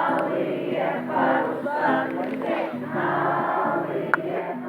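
A group of children singing a song together in chorus, many voices at once.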